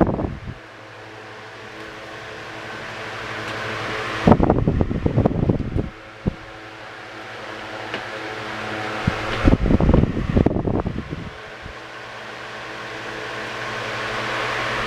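Vintage 12-inch Kord electric table fan running and oscillating: a steady motor hum with blade whoosh that builds as the head sweeps round, then gusts of its airflow buffet the microphone for a second or two. This repeats about every five and a half seconds.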